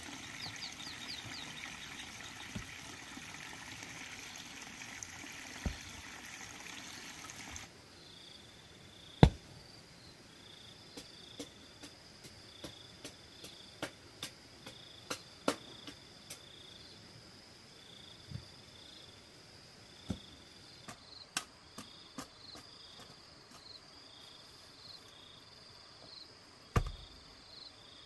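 Scattered sharp knocks and taps of a hoe and flat stones as stepping stones are set into a dirt path. A steady water-like hiss fills the first several seconds and then cuts off, leaving insects chirping in a repeating pattern behind the knocks.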